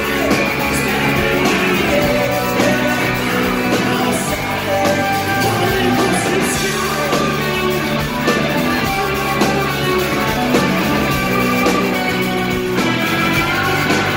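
A rock band playing live, with electric guitar and drums.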